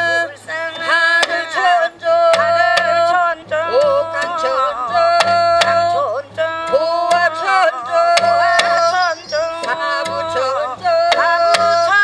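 Korean shamanic gut ritual music: an ornamented melody with bending, wavering notes over regular barrel-drum strikes and a low steady drone.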